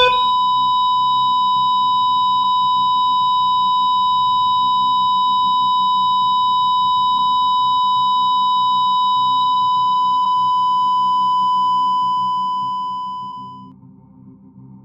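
Heart monitor sounding a flatline alarm: one continuous steady beep with no break, the sign that the heart has stopped. It fades out near the end.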